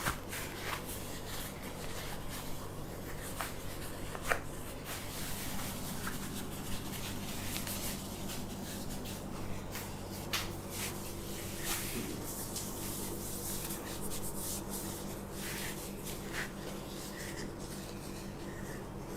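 Quiet steady low hum with faint rubbing and rustling, broken by occasional small clicks, the loudest about four seconds in.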